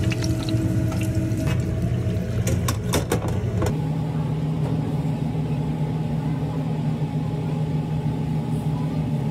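A steady low machine hum that shifts to a different pitch about four seconds in. Over the first few seconds, oil bubbling in a deep fryer, with a few sharp metal clanks near three seconds in.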